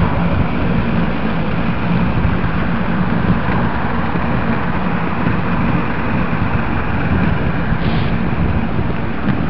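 Inline skate wheels rolling continuously over an asphalt cycle path, a steady coarse rolling noise, with a brief higher sound about eight seconds in.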